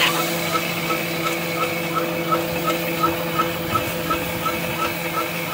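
SVPG-2 drilling-slotting (mortising) machine running in automatic mode, a steady motor hum with a short light tick repeating evenly about three times a second.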